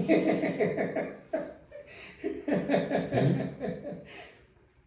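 Laughter in two bouts of quick, pulsing chuckles, the first over the opening second or so and the second from about two seconds in.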